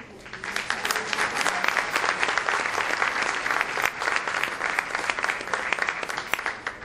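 Audience applauding: a dense spread of hand claps that starts about half a second in, holds steady and fades away near the end.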